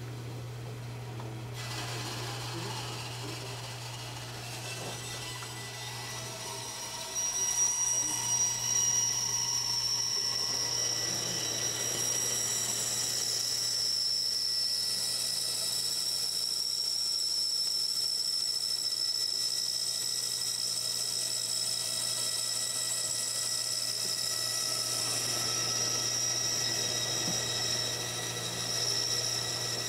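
Woodworking bandsaw running; about seven seconds in it gets louder, with a steady high whine that holds as the blade cuts through a laminated hardwood drawer blank.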